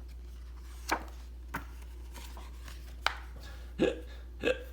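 A person hiccupping: about five short, sharp hics at uneven intervals, the last two the loudest.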